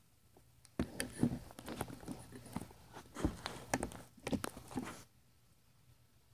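Handling noise close to the microphone: a run of irregular knocks, taps and rustles for about four seconds as the item and recording device are moved about, then stopping.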